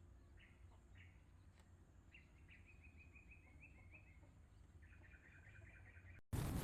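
Faint bird chirping: a couple of single chirps, then quick runs of repeated chirps, over a steady low hum. A brief loud burst of noise near the end.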